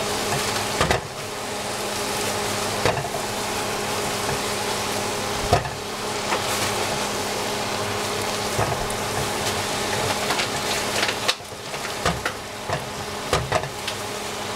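Cabbage, capsicum and zucchini sizzling steadily as they stir-fry in a hot pan, with a cooking utensil clicking against the pan a few times and several quick knocks near the end as the vegetables are stirred.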